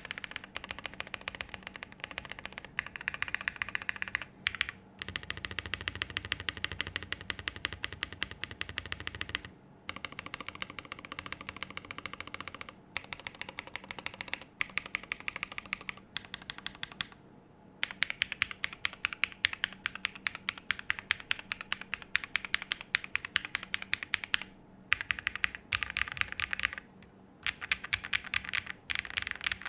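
Fast typing on a custom 65% mechanical keyboard with Green Jacket linear switches, an FR4 plate, case and plate foam and PBT keycaps: a dry, loud clack, in long bursts of rapid keystrokes broken by brief pauses.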